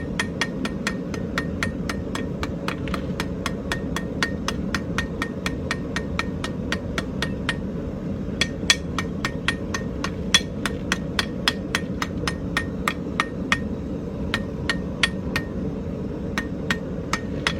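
Blacksmith's hammer striking hot iron on an anvil, rounding off and drawing out the tip of a fork tine. The blows come at about four a second, then grow sparser and uneven in the second half, over a steady low rumble.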